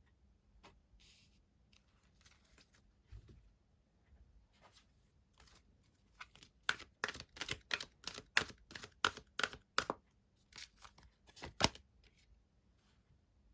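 Tarot cards being handled and shuffled: faint rustling at first, then from about halfway through a run of sharp card snaps, about three a second, pausing briefly before a last few.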